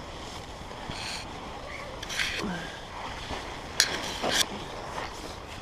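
A steady rush of wind with a few brief rustles of camping gear being handled, three of them sharper than the rest.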